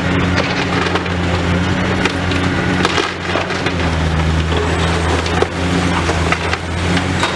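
Demolition excavator working a building over: its diesel engine runs steadily, its note dropping a little about four seconds in, under continuous crackling and crunching of breaking, splintering material.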